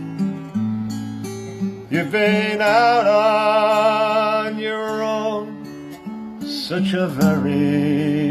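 Strummed acoustic guitar accompanying a man singing a slow song, with long held notes that waver with vibrato.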